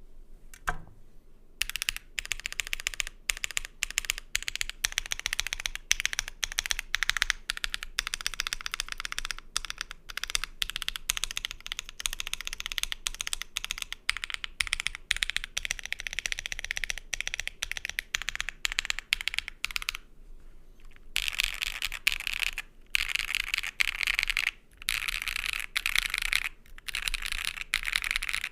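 Typing on a Keychron Q10 Alice-layout mechanical keyboard with BSUN Cliff tactile switches on a POM plate and doubleshot ABS keycaps: a steady run of key clacks that pauses briefly about two-thirds through, then resumes faster and louder.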